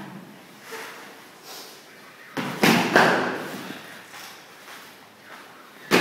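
Shoes stamping and scuffing on a hard floor as two fighters step and lunge in knife sparring. The loudest thuds come about two and a half seconds in and again near the end, each followed by room echo.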